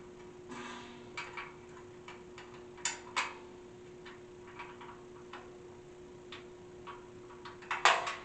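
Irregular clicks and light metal knocks from hand tools and bolts on a metal futon frame being assembled, with a louder cluster of knocks near the end, over a faint steady hum.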